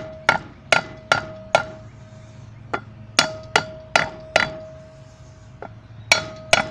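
A hammer gently tapping a 2x4 wood block to drive a grease seal and inner bearing into a wheel hub until they are seated. The taps come in three quick runs with short pauses between, and each leaves a brief metallic ring.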